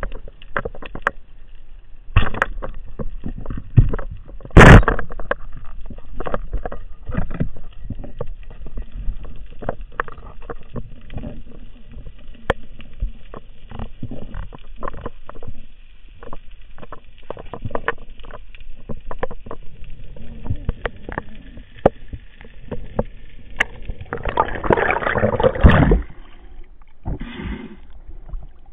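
Underwater sound of a spearfishing dive: many small clicks and knocks from the diver's gear. A single sharp, loud crack comes about five seconds in, the rubber-band speargun firing. Near the end there is a rush of bubbles and water noise as the diver breaks the surface.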